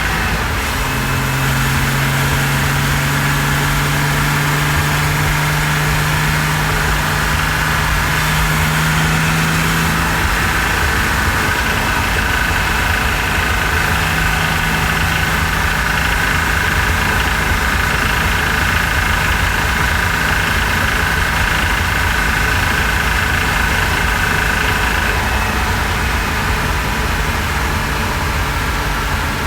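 Porsche Cayman S 3.4-litre flat-six engine running steadily at about 3,100 rpm under way, heard close up with the engine cover off. A rebuilt engine that the owner says starts knocking once it has warmed up.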